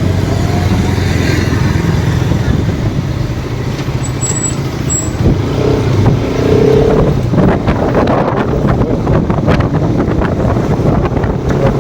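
Motorcycle engine running under way, with road noise and wind buffeting the microphone; the wind buffeting grows heavier over the second half.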